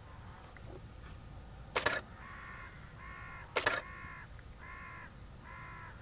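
A crow cawing five times in a slow, even series. Two short bursts of rapid clicks, louder than the calls, come about two and four seconds in: the camera's shutter firing in bursts.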